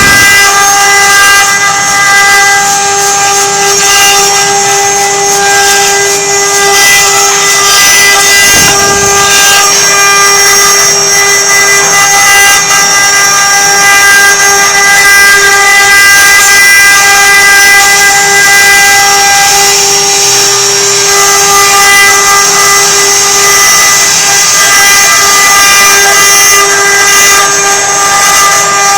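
CNC router spindle running in a steady high-pitched whine while it carves, with brief dips where the cut loads it.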